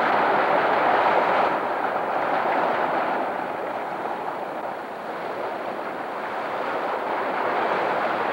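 Water pouring down a small waterfall between boulders into a pool, a steady rush of splashing water.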